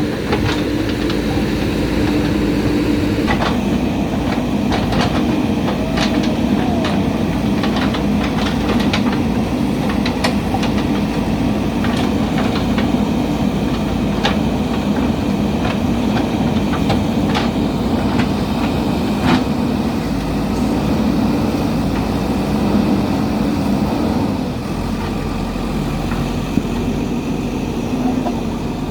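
JCB backhoe loader's diesel engine running steadily as the machine works, with scattered sharp clanks and knocks throughout. The engine sound eases slightly near the end.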